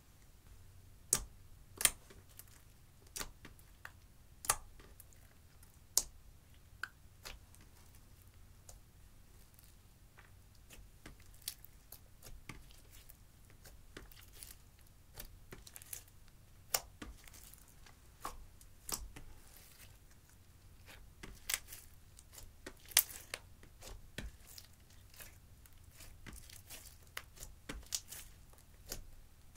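Clear slime with eyeshadow and glitter mixed in, squeezed and kneaded by hand, giving irregular sticky crackles and pops.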